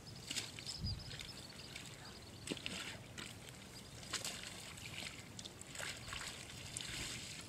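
Faint sloshing of muddy water as water buffalo shift and roll in a mud wallow, with soft scattered ticks and a soft low thump about a second in.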